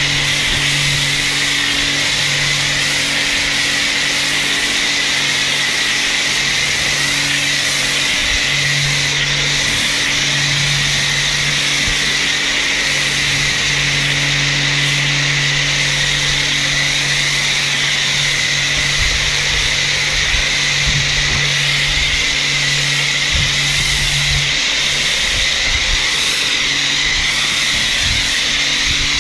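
Kärcher K4 electric pressure washer running, feeding a PA snow foam lance that sprays foam with a steady hiss. The washer's low hum weakens and returns a few times.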